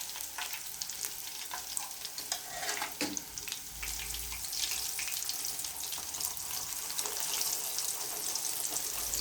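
Floured fish deep-frying in plenty of hot oil in a pan: a steady sizzle with many small crackles.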